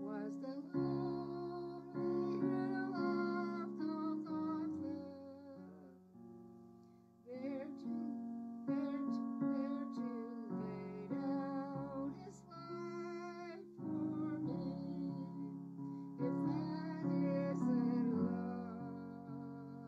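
An elderly woman singing a hymn with piano accompaniment, in phrases, her voice wavering with vibrato over sustained piano chords.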